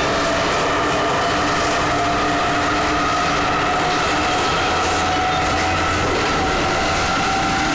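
Soviet-built 81-71 metro train running between stations, heard from inside the car: a steady loud rumble of wheels on rail, with a whine that slowly rises in pitch as the train gathers speed.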